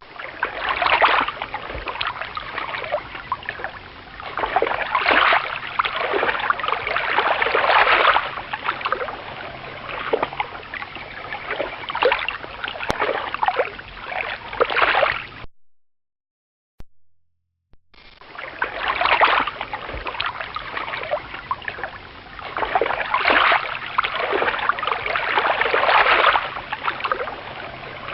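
Water splashing and sloshing in surges a few seconds apart, cutting out about halfway through and then starting again with the same pattern.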